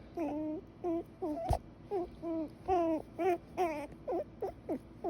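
A baby fussing and whimpering in a string of short, pitch-bending cries, with a single sharp knock about a second and a half in.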